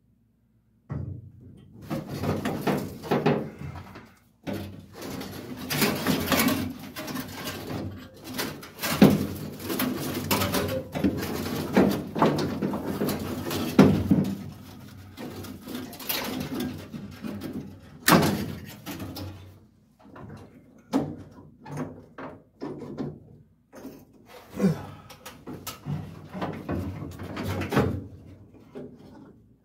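Hands and tools working under a 1951 Chevy truck's dash, dismantling the old wiring and gauges: irregular scraping, rattling and knocks, with short pauses in between.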